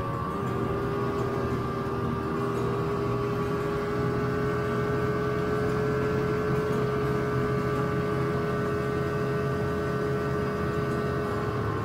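Snowmobile engine and track running at a steady cruising speed, heard from on board, with a steady whine that holds one pitch.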